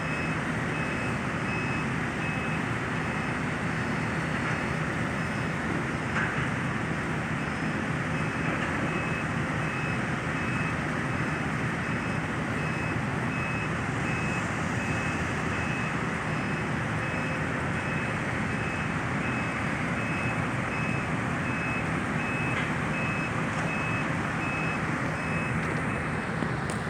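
Heavy demolition machinery running steadily, with a backup alarm beeping over and over on one high note.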